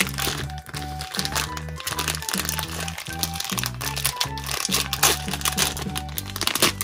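Crinkling and crackling of a blind-bag toy wrapper being torn and unwrapped by hand, over steady background music with a regular bass line.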